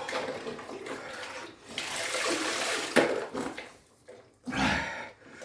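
Ice water poured from a jug over a person's shoulders, splashing back into an ice-filled chest freezer in several pours, with a sharper splash about three seconds in.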